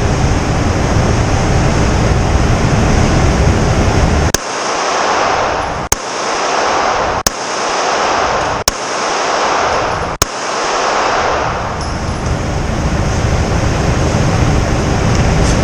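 Five shots from a Glock 19X 9mm pistol fired about one every second and a half, over a steady loud rushing noise.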